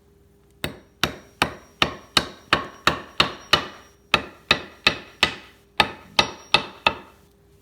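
Steady hammer taps, about seventeen strikes at roughly three a second with a brief pause midway, each ringing off briefly. A rag is laid over the adhesive cloth strip to press it down onto a climbing-stick step.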